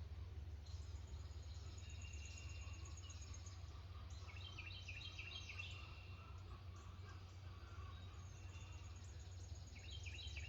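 Several songbirds chirping and trilling, with runs of short high notes, over a steady low rumble.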